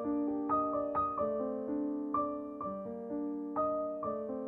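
Background piano music: a steady flow of struck notes and chords, each ringing and fading.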